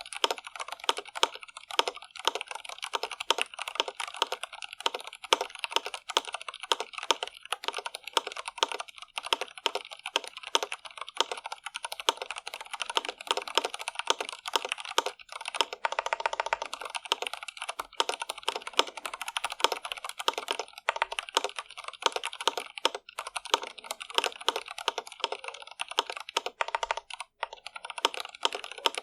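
Continuous fast typing on an Iqunix L80 mechanical keyboard with stock, unmodified Cherry MX Red linear switches: a dense, uneven stream of key clacks.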